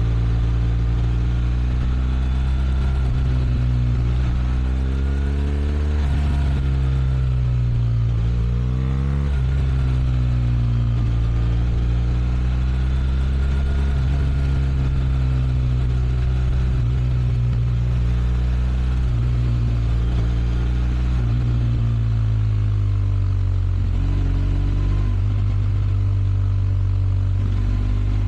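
BMW R1200 RS flat-twin boxer engine running, its revs rising and falling twice in quick succession early on, then holding steady and dropping to a lower note near the end.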